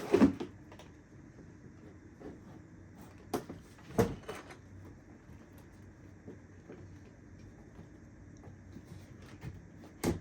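Cardboard product box being handled and opened: a few scattered sharp knocks and scrapes, about a third of a second in, at about three and four seconds, and again near the end, with little sound in between.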